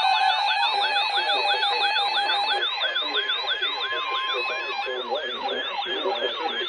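Several weather alert radios sounding their warbling siren-style alarms together, the sweeps repeating about three times a second. Under them runs the NOAA Weather Radio's steady warning alarm tone, which ends a little before five seconds in; another radio's steady alarm tone stops about two and a half seconds in.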